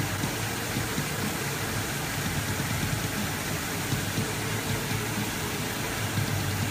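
Steady pink noise hiss playing back as a mixing level reference. A kick drum track sits faintly beneath it, being faded up until it is just audible above the noise.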